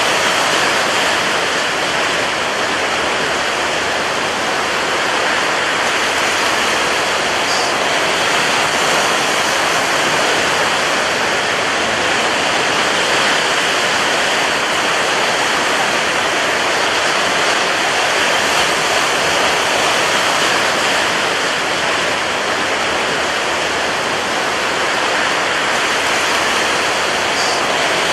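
Rough sea: a steady, even rush of surf with no separate wave crashes standing out.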